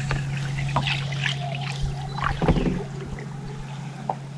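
Fishing boat sitting on calm water with a steady low hum, and a few short clicks and knocks; the loudest comes about two and a half seconds in.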